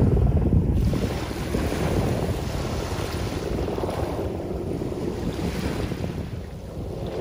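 Small waves washing up and sliding back over a coarse coral-sand beach, swelling and ebbing a few times, with wind on the microphone. A louder low rumble fades out over the first second.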